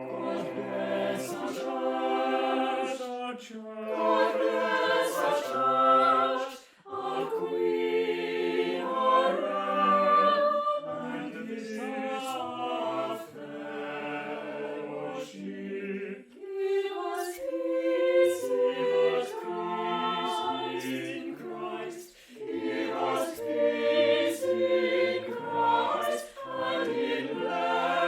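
A choir singing in sustained phrases, with short breaks between lines.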